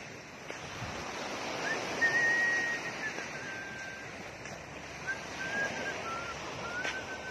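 Small waves washing onto a sand beach, with wind buffeting the phone's microphone. A thin, wavering high tone comes and goes from about two seconds in until near the end.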